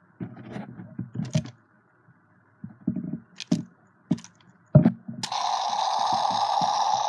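Clicks and knocks of the plastic Ben 10 Deluxe Omnitrix toy watch being handled. About five seconds in, the toy's speaker starts a steady, hissy electronic sound effect.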